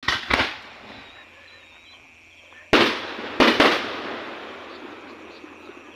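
Aerial fireworks bursting with sharp bangs: two in quick succession at the start, then a third about three seconds in and two more half a second later, each dying away in a long echoing fade.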